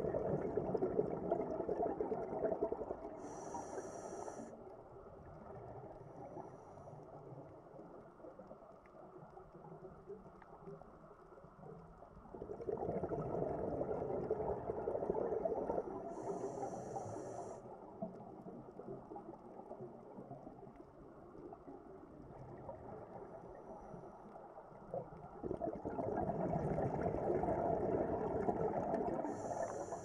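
Scuba diver breathing through a regulator underwater: three long rushes of exhaled bubbles, about twelve seconds apart, each with a short high hiss near its end, and quieter underwater background between them.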